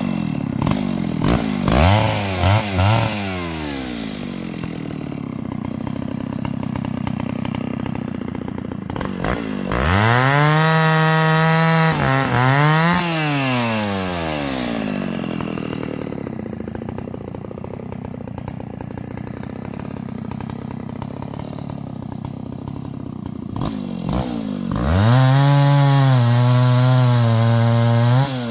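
Small engine running and being revved up and let back down three times: a short blip early on, a longer rev about ten seconds in, and another near the end.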